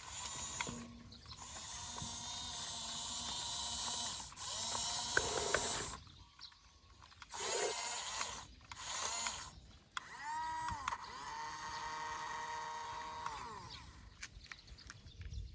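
Toy RC bulldozer's small electric motors and plastic gearboxes whirring in repeated short runs, starting and stopping every second or few seconds. Toward the end one longer run rises in pitch, holds steady for a few seconds, then winds down.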